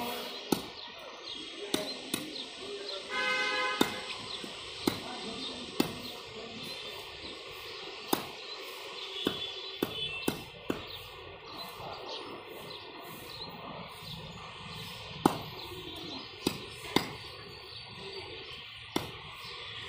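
A large curved knife chopping fish on a wooden block: sharp, irregular chops, some in quick succession and others several seconds apart.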